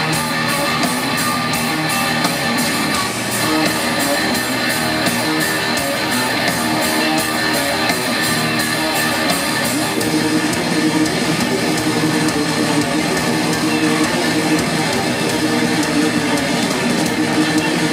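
Live rock band playing in an arena, electric guitar leading, with a steady beat in the first half.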